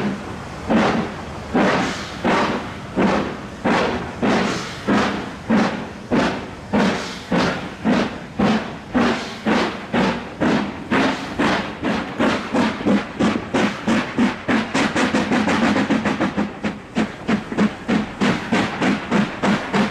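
LMS Stanier Black Five 4-6-0 steam locomotive 45305 climbing under load, its two-cylinder exhaust beating evenly and steadily quickening, from under one and a half beats a second to about two and a half, as it gathers speed. Heard from the train just behind the tender.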